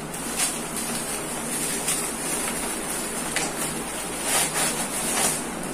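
Paper and plastic packaging rustling and crinkling as a product is pulled out of its packet, with a few sharper crinkles over a steady background hiss.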